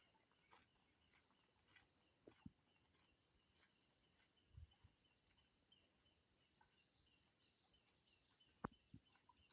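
Near silence: faint, high chirping of insects and birds, with a few soft taps.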